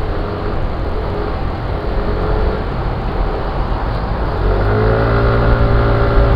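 Yamaha NMAX scooter riding in traffic: a steady rumble of engine and road noise, with the engine note coming up louder and clearer about four and a half seconds in as it picks up speed.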